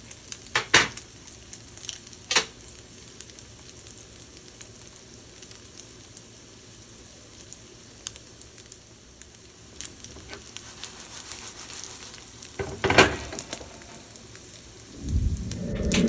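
Tuna croquettes sizzling and crackling steadily in a hot frying pan. A few sharp knocks sound over it, one a little under a second in, one a couple of seconds later and one near the end, followed by a duller low clatter at the very end.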